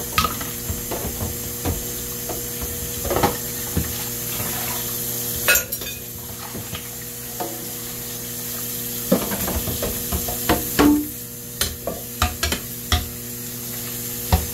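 Dishes being washed by hand in a stainless-steel sink: a pan scrubbed in soapy water, with scattered clinks and knocks of dishes and pans, over a steady hiss.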